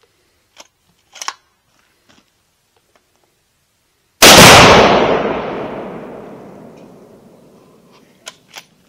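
A single very loud blast about four seconds in, followed by a long rolling echo that fades away over about four seconds: an exploding target (Tannerite) set off by a rifle shot. A few faint clicks come before it.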